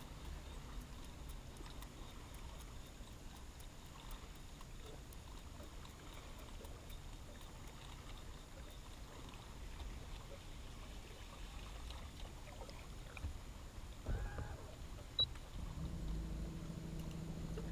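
Quiet open-water ambience with a faint low rumble, a short knock about 14 seconds in, then near the end a bow-mounted electric trolling motor starts up with a steady hum.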